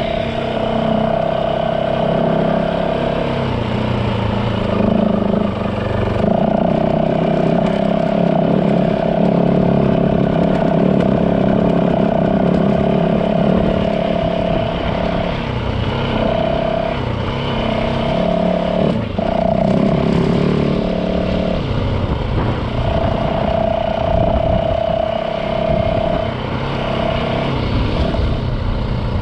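Yamaha WR450 single-cylinder four-stroke dirt bike engine running steadily while riding, its note briefly dropping away and coming back several times in the second half.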